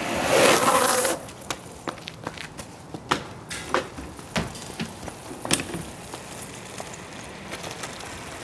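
Longboard wheels sliding hard on asphalt for about a second, the loudest sound here. Then come scattered light knocks and clicks of footsteps and a portable toilet's plastic door being handled.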